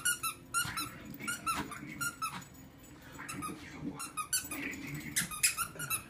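A squeaky dog toy squeaks over and over in quick, irregular bursts as the cairn terrier chews and squeezes it.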